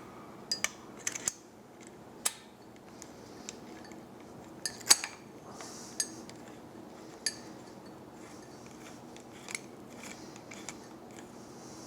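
Irregular sharp metallic clicks and clinks of an Allen key working the bolts of a motorcycle brake line bracket, a dozen or so spread out, over a faint steady hum.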